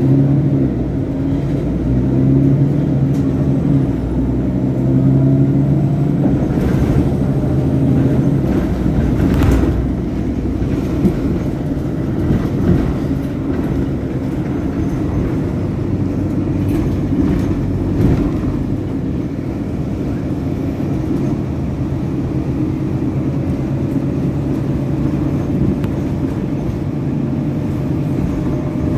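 City bus running along a street, heard from inside the cabin: a steady engine hum over road and tyre rumble, with a couple of brief knocks about seven and nine seconds in.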